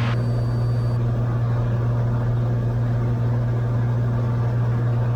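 Cessna 182's six-cylinder piston engine and propeller droning steadily in cruise, heard from inside the cabin.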